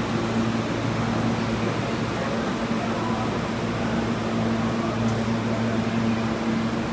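R46 subway train standing at the platform, its air-conditioning and auxiliary equipment giving a steady low hum over even noise, with no change in pitch.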